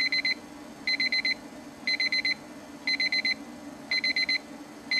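Bedside electronic alarm clock going off: clusters of four or five quick, high beeps, repeating about once a second.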